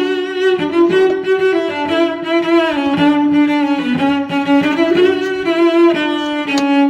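Background music on bowed string instruments, violin and cello, playing held notes with vibrato.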